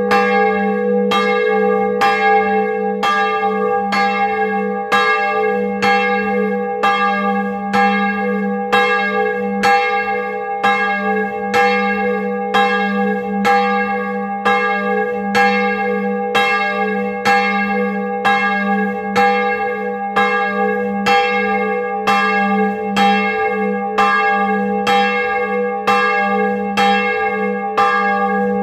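Bronze church bell, cast in 1658 and sounding G-sharp, swinging and ringing. Its clapper strikes in a steady rhythm a little more than once a second, each stroke ringing on into the next. It is heard close up in the belfry.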